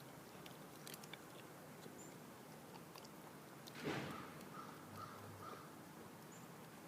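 Bernese Mountain Dog puppy chewing and crunching a raw chicken neck, faintly, with one louder crunch about four seconds in.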